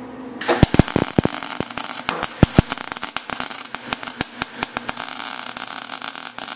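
TIG welding arc on a cast iron piston. It strikes about half a second in and crackles on with irregular loud pops, "popping and farting": dirt and impurities in the old cast iron are burning out of the weld puddle, the sign of a bad casting that won't take a TIG weld.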